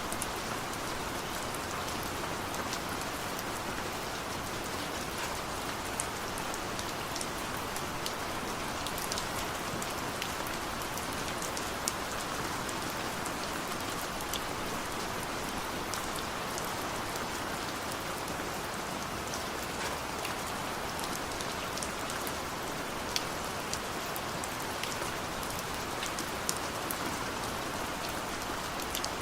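Heavy rain falling steadily, a continuous even hiss with scattered sharp ticks of individual drops striking a surface.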